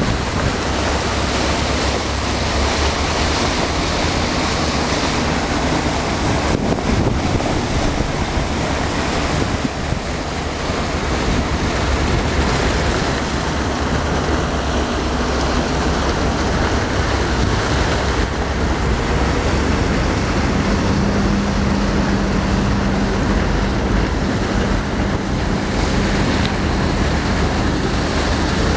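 Fast ferry's waterjet wash churning and rushing at the stern as the boat gets under way, over a low steady drone from its engines, with wind buffeting the microphone. A low hum grows stronger about two-thirds of the way through.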